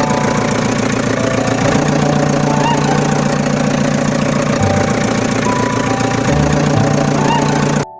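An engine running with a fast knocking rhythm, with held musical notes over it; it cuts off abruptly just before the end.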